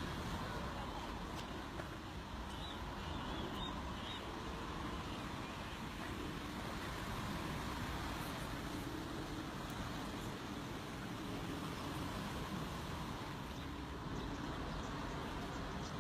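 Steady low background rumble with no distinct single source, with a few faint short high chirps about three seconds in.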